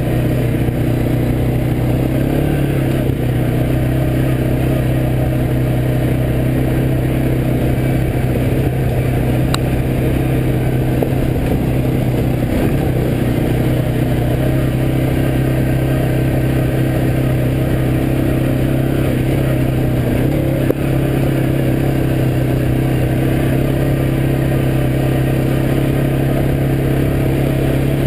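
ATV engine running steadily at cruising speed on a dirt trail, its pitch holding level with no revving.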